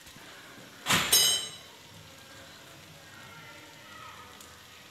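A stainless steel bowl knocks once about a second in, with a short metallic ring, while grated butter is shaken out of it onto rolled dough.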